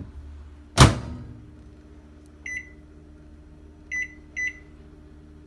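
Microwave oven door shut with a sharp bang, then three short electronic keypad beeps, one about two and a half seconds in and two close together near the end, as the cooking time is keyed in.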